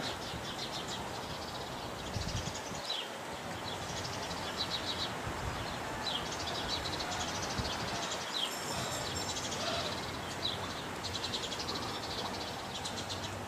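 Outdoor ambience: birds chirping, with short high chirps and trills coming now and then over a steady background hiss.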